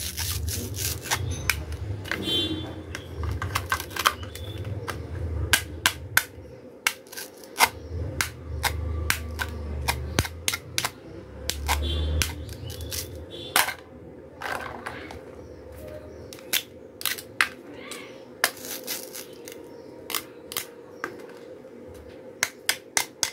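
Hard plastic toy pieces clicking and tapping against each other, many sharp clicks at irregular intervals, with low handling bumps through roughly the first half.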